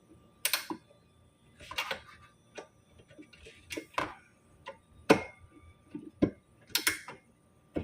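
Irregular small metallic clicks and taps, about ten spread unevenly, as an Allen key is fitted into and turned in the set screw of a refrigerator door handle mount.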